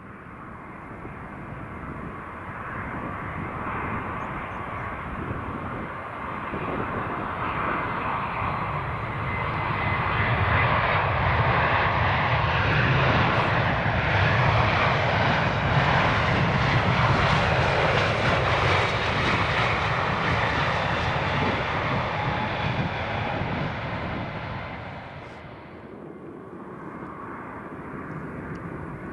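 Jet airliner's engines passing overhead: the noise builds over about ten seconds, holds at its loudest for several seconds, then fades away, dropping off sharply near the end.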